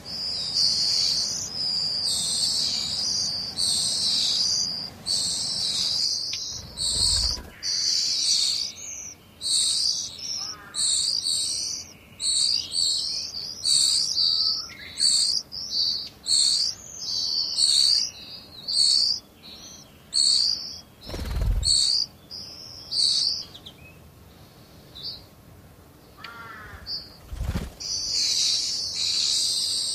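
Blue-and-white flycatcher nestlings begging for food: a dense run of high, thin chirps that breaks up into separate quick peeps after about seven seconds. The chirping goes nearly quiet for a few seconds and swells again near the end. There are three dull thumps, about seven seconds in and twice in the last third.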